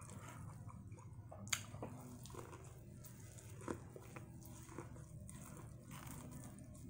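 Faint biting and chewing on a piece of fried corn on the cob. A few short crisp crunches stand out, one about a second and a half in and another near four seconds.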